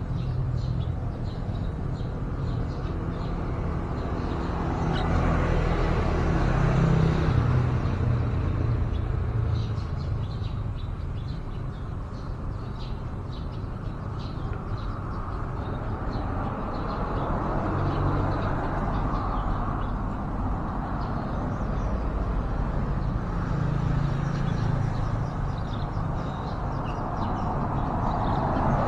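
Motor traffic passing steadily, its rumble swelling and fading as vehicles go by, with faint short bird chirps over it.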